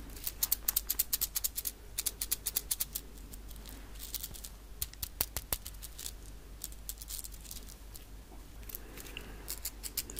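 A slim tube case shaken and turned close to the microphone, its loose contents rattling in quick bursts of clicks with short pauses between them.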